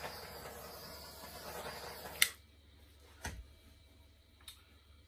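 Small handheld butane torch hissing steadily as its flame is passed over wet acrylic pour paint. About two seconds in, a sharp click cuts the hiss off, followed a second later by a soft thump.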